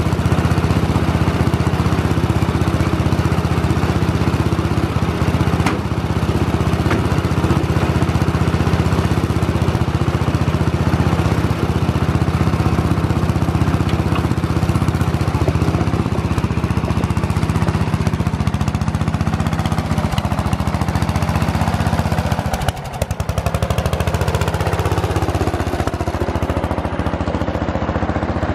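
1970 Sears SS14 garden tractor engine running steadily. In the second half the tractor moves off and comes up close, with a falling pitch from about eighteen to twenty-five seconds in.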